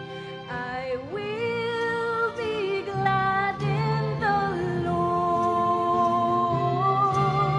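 Slow background song: a singer holds long, slightly wavering notes over a sustained accompaniment.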